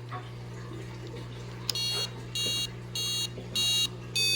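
Killer Bee RC kill switch electronics beeping as the unit powers up: about five short, even, high-pitched electronic beeps, roughly one every 0.6 s, starting a little under two seconds in, over a steady low hum.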